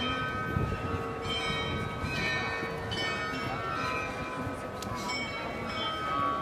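The Munich Rathaus-Glockenspiel's tower bells playing a tune, a new note sounding about once a second and each ringing on into the next, over a steady background hum.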